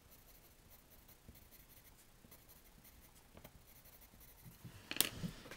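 Green colored pencil scratching on cardstock in quick, short strokes, colouring blades of grass: a faint, rapid, scratchy patter. There is one louder brush of noise near the end.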